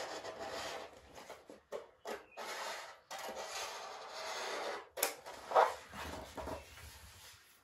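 Scissors cutting through pasted lining paper along a crease, in several long cuts with short breaks between them, and a sharp click about five seconds in.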